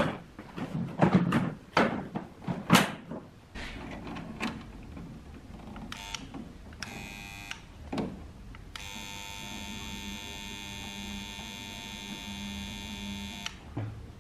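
Clattering knocks of plastic fan-housing parts being handled. Then a low electrical hum comes in, with two short buzzes and a steady electrical buzz lasting about five seconds near the end.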